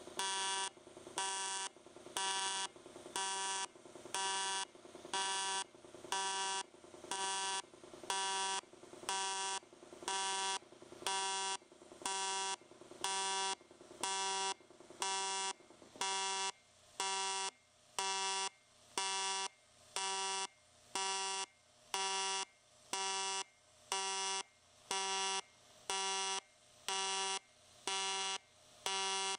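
Pulsed AC TIG arc from an Everlast 210 EXT welding 0.060-inch aluminium sheet: a steady electric buzz that swells and drops back at a regular rhythm of about once a second, set by the welder's pulse setting.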